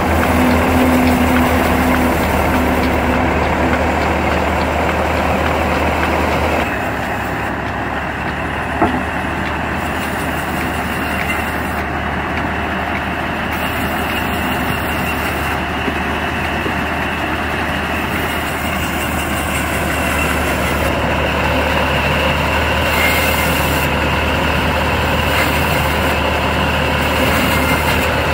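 Belarus tractor diesel engine running steadily, driving a belt-driven band saw that is cutting wood. The sound changes abruptly about six and a half seconds in, and there is a single short knock a couple of seconds later.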